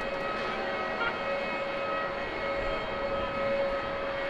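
Boeing 787 Dreamliner jet airliner climbing out after takeoff. Its engines give a steady rushing noise with a steady whine running through it.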